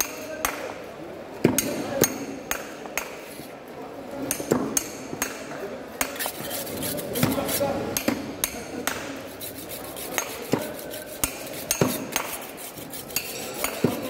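A metal rod striking the spine of a knife blade to drive it through a fish's backbone into a wooden board: sharp metallic knocks at an uneven pace of about one or two a second.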